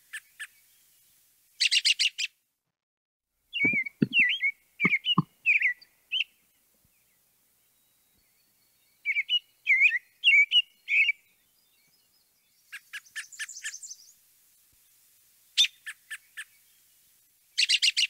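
American robin singing its caroling song: two runs of short, warbled whistled phrases, with quick bursts of sharp high notes between them.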